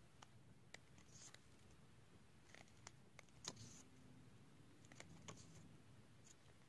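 Faint paper rustles and soft clicks as the glossy pages of a CD album photobook are turned by hand, about a page every couple of seconds, over near silence.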